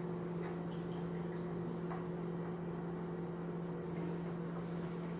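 Steady low electrical hum of a running microwave oven.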